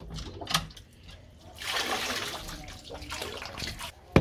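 Water gushing and splashing in a surge about a second and a half in, after a sharp knock about half a second in.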